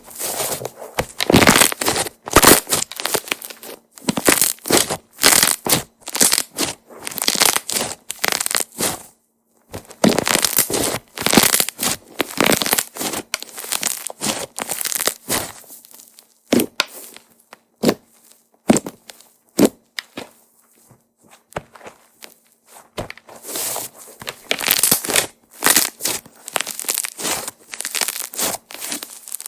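Soft, fluffy slime being squeezed and pressed by hand, crackling and popping with trapped air in dense runs of sharp clicks. In the middle stretch there are a few single pops between pauses.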